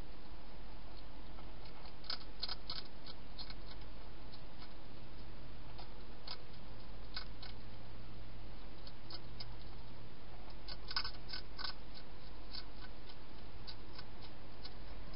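Wild hedgehog crunching dry food inside a plastic feeding box: irregular sharp clicks, in clusters about two seconds in and again around eleven seconds, over a steady low hum.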